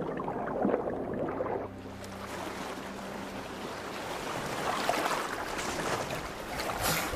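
Background music fades out about two seconds in and gives way to a steady rush of wind and sea noise, which swells a little near the middle and again near the end.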